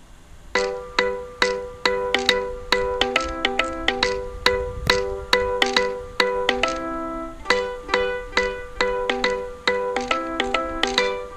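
An Android 7.1 Nougat ringtone playing: a quick melody of short, plucked-sounding notes that repeats, starting about half a second in.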